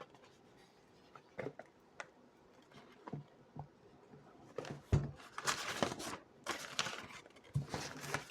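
Perfume box being handled and opened by hand: scattered light clicks and taps, a knock about five seconds in, then a few seconds of rustling and scraping of the packaging.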